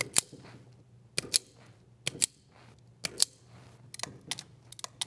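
A hand wiring tool working on control-wire ends as their ring lugs are converted to ferrule terminations. It makes sharp paired clicks about once a second, then lighter, quicker clicks near the end.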